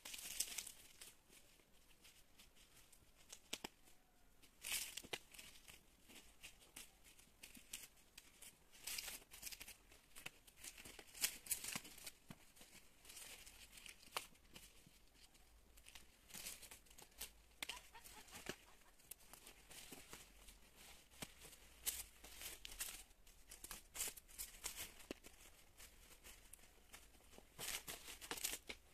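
Irregular short rustles and tearing of old, dry strawberry leaves being pulled off the plants by gloved hands, each leaf snapped away sideways with its stalk.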